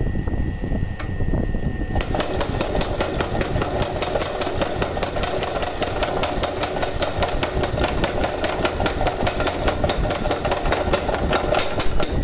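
Home-built mechanical forging power hammer under test: its motor runs steadily, then about two seconds in the hammer starts pounding in a fast, even rhythm of several blows a second, stopping just before the end while the motor keeps running.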